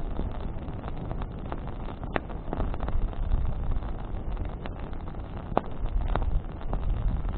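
Bonfire of burning branches: a steady low rumble with scattered sharp crackles, a few in each couple of seconds.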